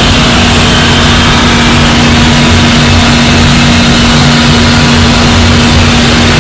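Ship's engine-room machinery running, the fuel oil purifiers among it: a loud, steady drone with a constant hum.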